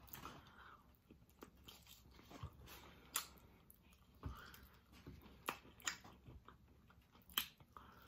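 Quiet close-up eating sounds: biting into and chewing a barbecue baby back rib, with scattered small wet smacks and clicks of the mouth.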